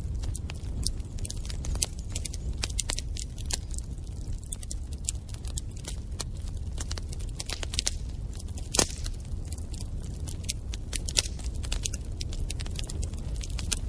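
Wood fire in a fireplace crackling, with irregular sharp snaps and pops over a steady low rumble of the flames. One louder pop comes a little under nine seconds in.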